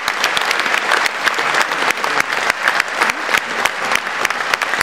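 A large audience applauding: many hands clapping in a dense, steady stream.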